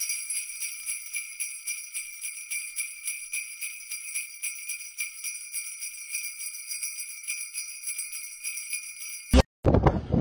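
Jingle bells shaken in a fast, even rhythm, a bright, high ringing with nothing low beneath it. About nine seconds in it is cut off abruptly by a short thump.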